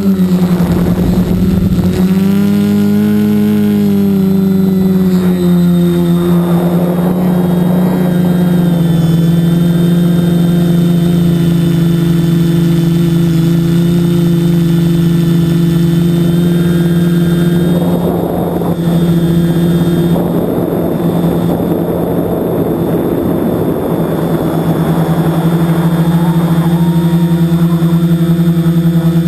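Electric motors and propellers of an FPV multirotor drone, heard from its onboard camera: a steady pitched hum whose pitch swells and settles a few seconds in. Rushes of wind noise come and go over it, near the start and through the second half.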